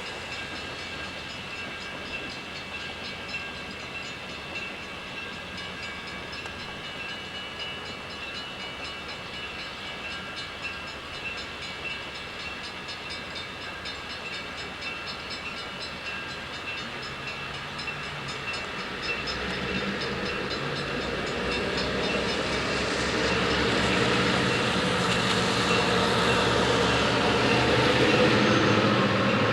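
Train on the rails, a steady sound with a few high ringing tones. From about two-thirds of the way in, a diesel locomotive's engine comes in low and grows steadily louder as it nears.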